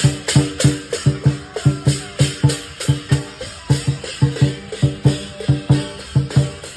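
Lion dance percussion: a large Chinese lion drum, hand cymbals and a gong struck together in a steady, driving beat of about three strokes a second, the drum thudding under the ring of the gong and the crash of the cymbals.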